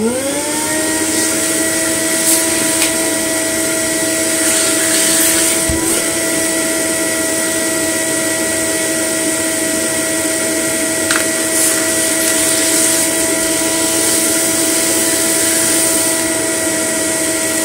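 A vacuum cleaner's motor starts and rises to speed within about half a second, then runs steadily with a whine and rushing air as its crevice tool sucks dust and fluff out of a vacuum floor-head mechanism. There are a couple of brief clicks along the way.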